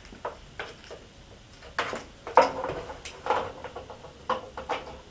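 Cable plugs being pushed into the rear ports of a computer monitor and the plastic housing handled: irregular plastic clicks and knocks, the loudest about halfway through.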